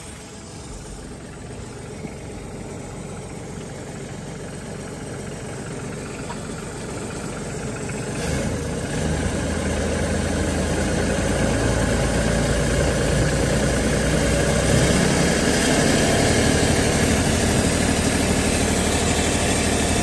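Branson tractor's diesel engine running with the exhaust-manifold plug removed, which bypasses its clogged DPF filter. It grows steadily louder, and from about eight seconds in it settles into a stronger, steady running note.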